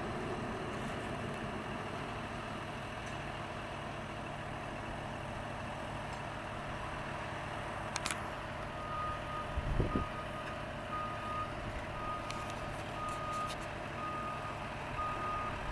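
Farm machinery engine running steadily. From about nine seconds in, a reversing alarm beeps about twice a second, with a couple of faint knocks in between.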